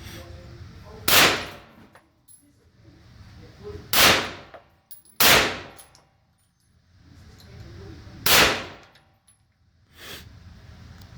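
Kel-Tec Sub-2000 9mm carbine fired four single shots at a slow, uneven pace, each a sharp crack with a short echoing tail.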